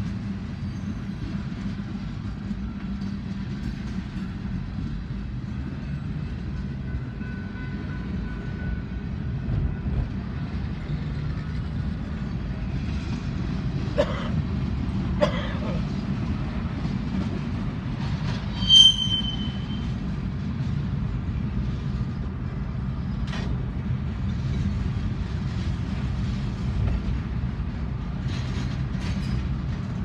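Freight train cars rolling past a grade crossing, heard from inside a car: a steady low rumble of wheels on rail with a few sharp knocks, and one brief high squeal about two-thirds of the way through.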